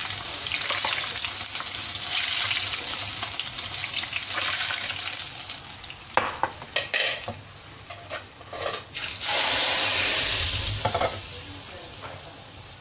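Hot cooking oil sizzling in a wok as pieces of fried chicken are lifted out with a utensil. A few sharp clicks and knocks come about six to nine seconds in, then the sizzle swells again and dies down near the end.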